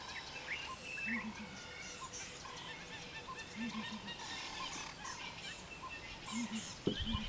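Wild birds calling in the bush: overlapping chirps and whistles, with a low call of three or four notes repeating every two to three seconds. A short low knock near the end.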